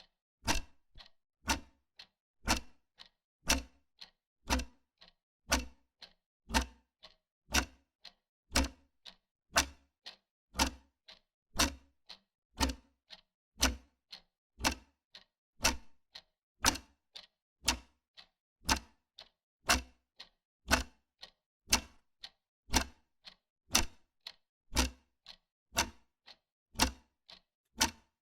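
Wall clock ticking steadily, a louder tick about once a second with a softer tick between.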